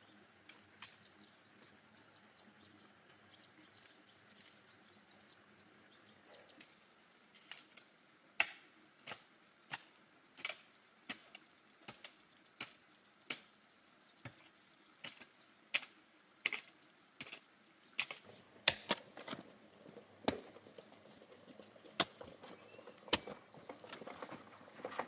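A hoe blade chopping into soil in a steady rhythm of sharp strikes, about three every two seconds. The strikes begin after several quiet seconds.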